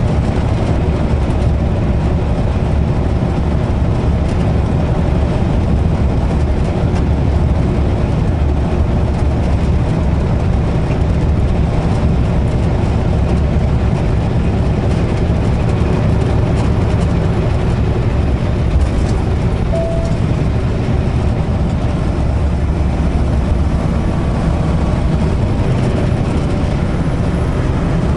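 Semi truck's diesel engine running steadily at highway cruising speed, heard inside the cab with road and tyre noise as a steady low rumble.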